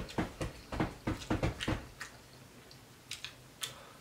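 A person chewing a mouthful of crispy fried fish: a quick run of wet smacking, crunching clicks, about four a second for two seconds, then a few sparse ones.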